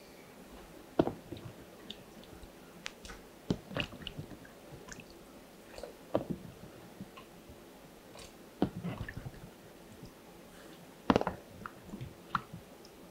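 Pot of water with yam pieces heating on the stove, coming up toward the boil: scattered pops and ticks at irregular intervals, a few of them sharp and loud.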